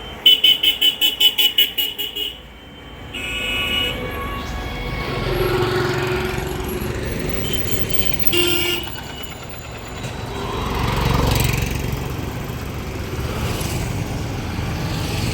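A vehicle horn tooting in a quick run of about ten short blasts lasting roughly two seconds. It is followed by vehicle engines running, with another short honk about eight seconds in.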